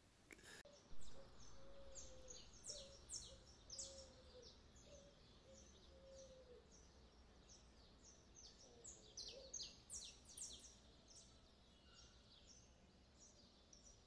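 Faint birdsong: many short, high, quick chirps from several birds, scattered throughout, over a faint low steady rumble.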